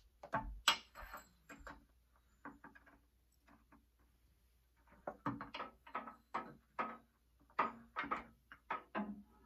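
Segmented magnesium anode rod being fed down into an electric water heater's tank port, its metal links knocking against the port and catching on the heating elements inside as it is wiggled down. Short knocks: a few at first, then quick clusters of them over the last few seconds.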